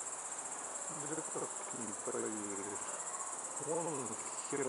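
Insects chirring in a steady high-pitched trill, with low murmured voices from about a second in until near the end.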